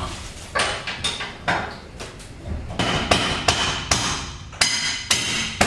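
Repeated knocks on a coated steel shelter frame and its polycarbonate roof panel, about two a second, the later ones ringing with a metallic tone, as the roof panel is worked into position for fixing.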